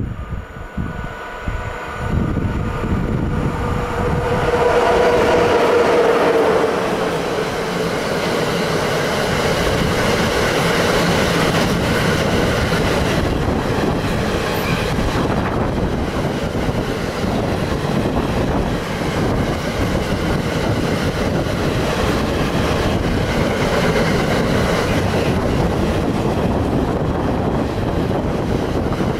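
Freight train of double-deck car-carrier wagons passing close by, its wheels rolling steadily over the rails. The sound builds over the first few seconds as the locomotive approaches and is loudest a few seconds in, then settles into an even rumble as the wagons go by.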